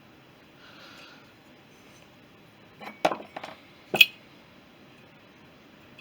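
Small metal parts clinking as they are handled and set down on a workbench: a few light knocks about three seconds in, then one sharper click a second later.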